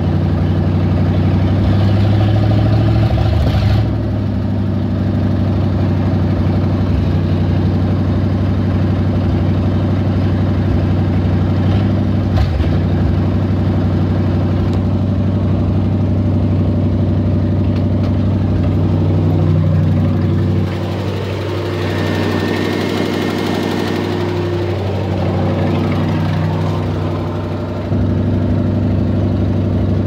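Chrysler 360 (5.9 L) V8 idling high, around 2,000 rpm, and rough: the sign of a vacuum leak at the PCV valve.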